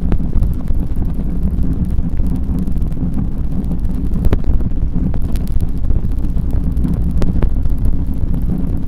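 Steady wind buffeting the microphone of a moving bicycle rider, a heavy low rumble, with a few sharp clicks scattered through it.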